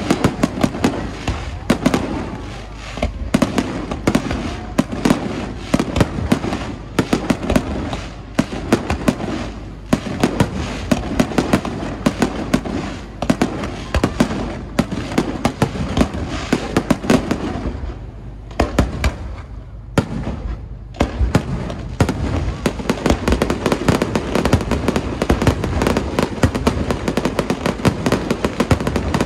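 Aerial fireworks display: a rapid, unbroken volley of bangs and crackles over a steady low rumble. It thins out briefly about two-thirds of the way through, then a dense barrage of crackling bangs follows near the end.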